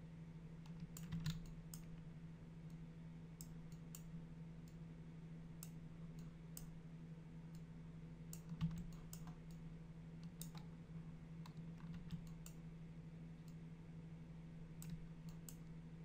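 Sparse, irregular clicks of a computer mouse and keyboard over a steady low electrical hum.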